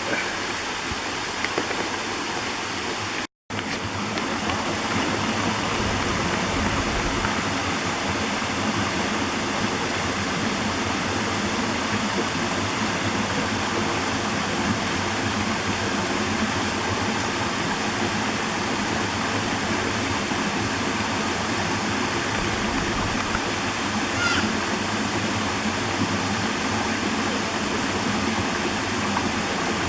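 Waterfall: a steady rush of falling water, broken by a brief total drop-out about three seconds in.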